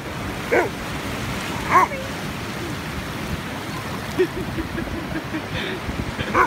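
Afghan hound giving two loud play barks, about half a second and two seconds in, then a run of quieter short low calls a few seconds later, over a steady hiss of surf.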